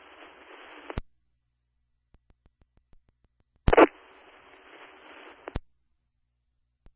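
Fire-department two-way radio heard through a scanner with no words spoken: an open channel hisses and cuts off with a squelch click about a second in. After a silent gap a second key-up opens with a short burst, hisses for about two seconds and drops with another click.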